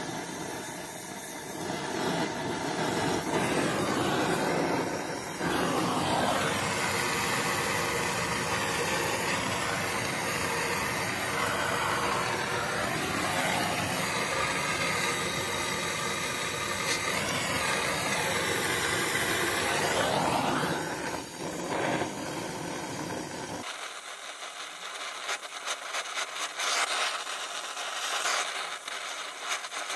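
Oxy-fuel gas welding torch (Donmet 132A micro) burning steadily with a dense hissing flame noise while a pipe joint is welded. About 23 seconds in the deep part of the sound drops away, leaving a thinner hiss with quick crackles.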